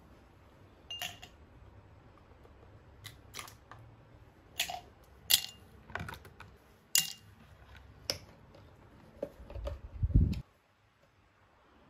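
Ice cubes taken from an ice tray and dropped into a drinking glass: a string of sharp clicks and glassy clinks, roughly a second apart. A few dull thumps follow near the end.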